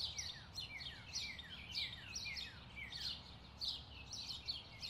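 Small songbirds chirping, a quick run of short high notes that each drop in pitch, about three a second.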